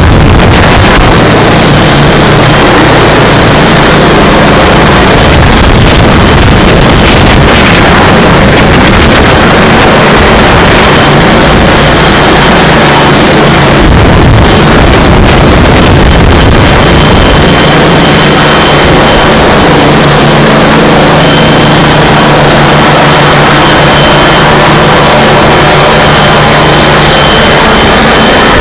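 Helicopter hovering low, its rotor and engine noise very loud and steady, with a faint high whine coming and going in the second half.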